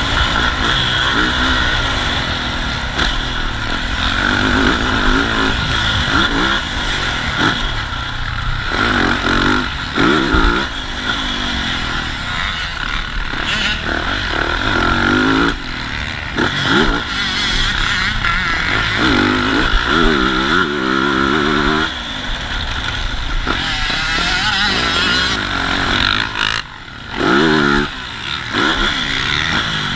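Motocross dirt bike engine, heard from on board, revving up and dropping back again and again as the rider works the throttle and gears around the track, with wind rushing over the microphone. Near the end the engine note cuts back sharply for a moment, then picks up again.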